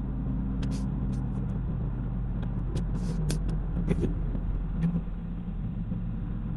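A car being driven: steady engine hum and road rumble, with scattered short clicks and ticks over it.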